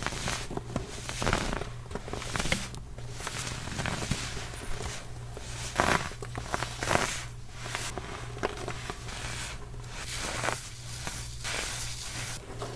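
Compressed baking soda crunching and crumbling in irregular bursts, one every second or so, the loudest two about halfway through, over a faint steady low hum.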